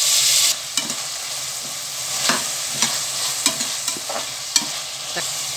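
Onion, tomato and curry leaves frying in hot oil in a pan, sizzling steadily while a spoon stirs and knocks against the pan. A louder hiss in the first half second drops off sharply.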